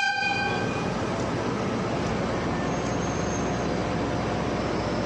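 DE10 diesel locomotive running as it rolls slowly along the platform, a steady rumble of engine and wheels. The last of its horn blast dies away within the first second.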